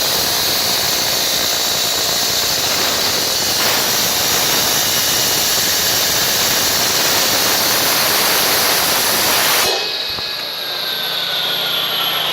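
Nilfisk CFM VHW211 industrial vacuum cleaner running at full suction with a steady loud rush and whine, then switched off near the end, its motor whine falling as it spins down.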